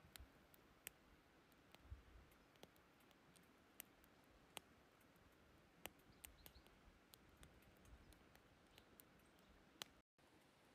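Faint, irregular crackling and popping of sticks burning in a Firebox wood stove.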